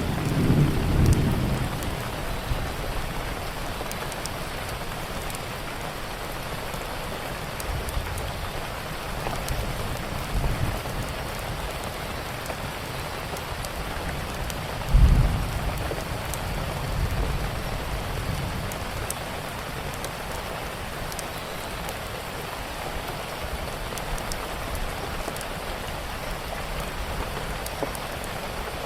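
Steady rain with thunder: low rumbling at the start, then a sudden loud thunderclap about halfway through that rumbles off over a few seconds. Scattered fireplace crackles run under the rain.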